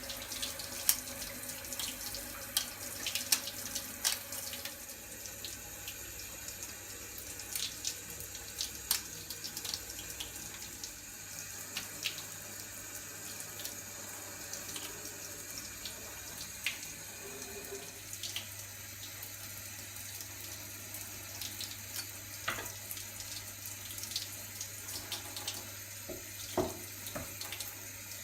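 Hot water running from a tap into a sink in a steady stream, with scattered light clicks and knocks, as a resin 3D print is washed and worked free of its build platform.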